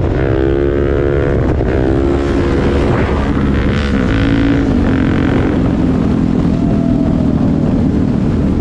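Motorcycle engine under way, its revs rising and falling during the first two seconds, then holding a steady note. Heavy wind rushes on the microphone throughout.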